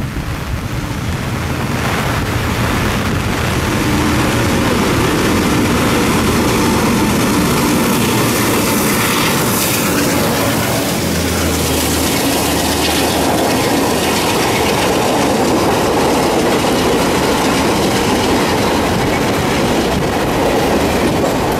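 Express passenger train passing close by, its air-conditioned coaches' wheels running over the rails. The sound grows over the first few seconds as the train arrives, then holds steady and loud while the coaches pass.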